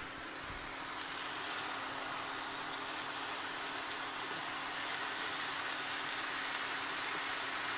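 Steady sizzling hiss of cabbage and minced beef frying in a pan.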